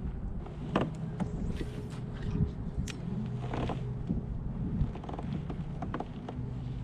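Steady low motor hum with scattered knocks and clicks throughout.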